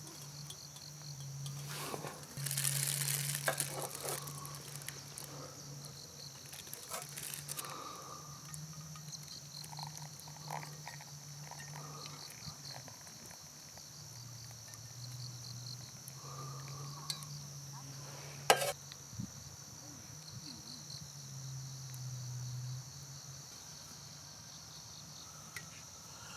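Autumn crickets chirring steadily in high, pulsing trills over a low steady hum that stops about three-quarters of the way through, with a few small rustles and one sharp click.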